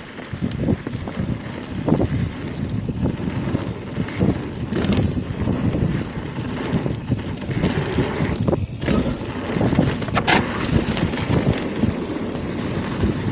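Mountain bike rolling over rough, rocky trail: wind buffeting the microphone over a steady rumble of tyres on dirt, with irregular knocks and rattles from the bike and a couple of sharp clacks about five and ten seconds in.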